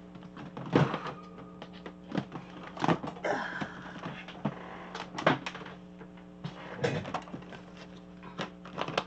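Things being handled and set down on a craft table: several sharp knocks and clacks a second or two apart, with a stretch of rustling about three seconds in, over a steady low hum.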